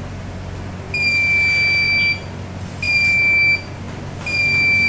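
Piezo buzzer of a 555-timer rain alarm sounding a steady high-pitched tone in three beeps of about a second each, the alarm signalling water bridging the rain sensor's leads.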